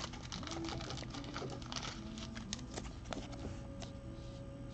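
Light clicks and rustles from a trading card being handled by hand: a scatter of small, irregular ticks.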